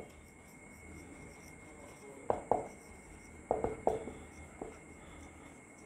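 Marker pen writing on a whiteboard: a few short scratchy strokes about two seconds in, then another cluster from about three and a half to four and a half seconds.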